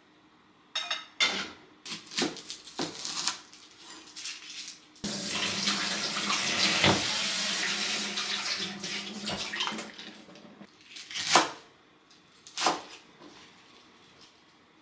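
Kitchen tap turned on, water running into the sink for about five seconds before it is shut off. A few knocks and clatters of kitchenware come before it, and two sharp knocks after.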